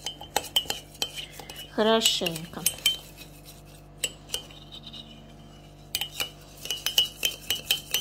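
Metal teaspoon clinking against the inside of a ceramic mug while stirring seeds in a thin gelatin mixture. The clinks are quick and repeated, thin out in the middle, and come thick again near the end.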